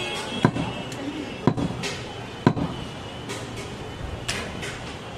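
Butcher's knife striking goat meat on a wooden chopping block: three sharp chops about a second apart, followed by a few lighter, higher knife clicks.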